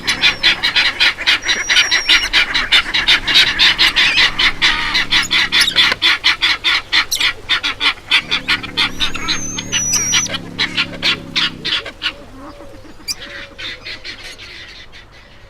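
A flock of birds calling in a rapid, dense clamour of goose-like honks, about five or six calls a second, thinning out and fading near the end.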